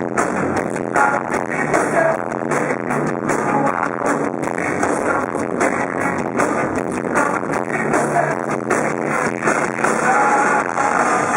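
Live rock band playing loud through a club PA, drums hitting steadily under electric guitars, with a sung vocal line, recorded on a handheld camera so the sound is dense and a little distorted.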